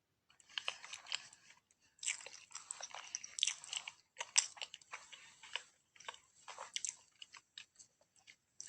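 Close-miked ASMR chewing of cheesy food: bunches of quick mouth clicks and smacks with brief pauses between bites.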